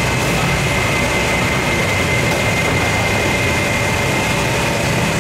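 Steady machine noise: a continuous drone with a low hum and a constant high-pitched whine.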